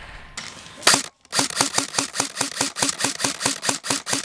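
Airsoft gun firing: one sharp shot, a moment of silence, then a steady string of shots at about six a second.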